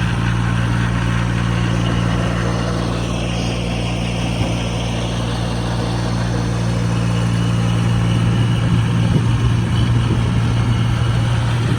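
A steady low mechanical hum with a rushing noise over it, which grows rougher about two-thirds of the way through.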